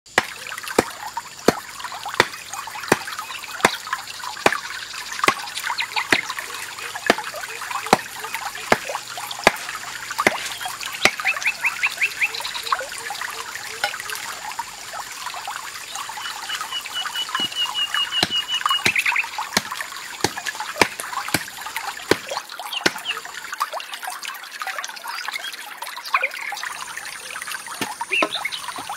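Small forest stream trickling. Sharp ticks come about every three-quarters of a second for the first ten seconds, then irregularly, and short chirping trills come in twice.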